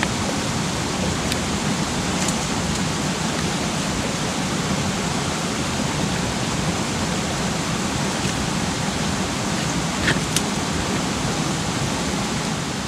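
Small mountain stream rushing steadily over rocks, with a couple of faint ticks about ten seconds in.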